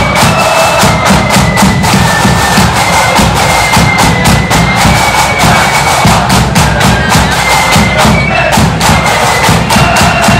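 Marching flute band playing: flutes carry a high melody over snare and bass drums beating many strokes.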